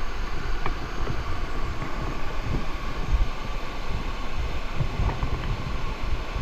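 Steady rush of waterfall water, with irregular low buffeting on the microphone.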